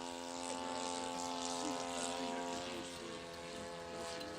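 Radio-controlled model airplane engine running in flight: a steady, droning tone with a slight shift in pitch about three seconds in.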